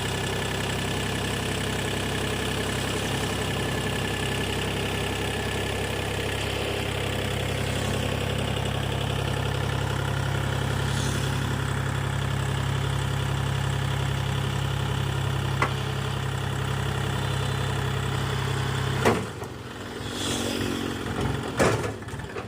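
Diesel engine running steadily at idle, with a deep even hum. About nineteen seconds in it cuts off abruptly with a sharp click, and quieter, uneven sounds follow.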